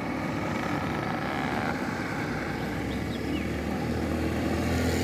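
A motor engine's steady low hum over outdoor background noise, growing louder from about halfway through.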